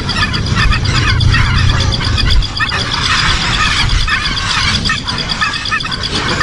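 Birds chirping in quick, repeated short calls over a steady, pulsing high-pitched whine and a low rumble.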